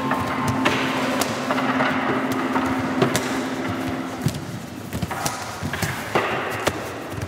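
Live instrumental music: a held note that stops about four seconds in, with sharp percussive knocks and thuds scattered throughout.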